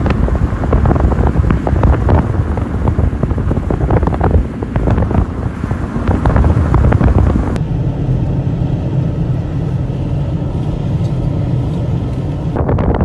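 Car driving on a dirt road: heavy wind buffeting on the microphone held out of the window, over tyre crackle and road rumble. About halfway through it changes abruptly to quieter, steadier in-cabin road and engine hum.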